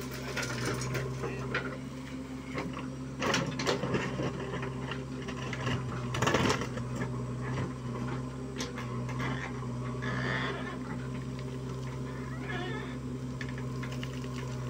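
Diesel engine of a JCB 3DX backhoe loader running steadily under hydraulic load while digging and dumping soil, with a few sharp knocks and rattles of earth and stones, the loudest about six seconds in.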